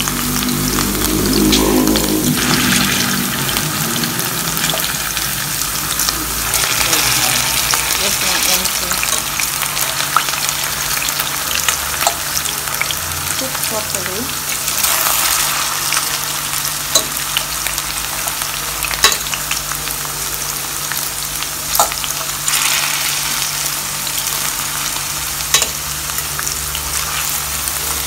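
Potato wedges deep-frying in vegetable oil in a stainless steel pot: a loud, steady sizzle that swells now and then, with sharp clicks every few seconds.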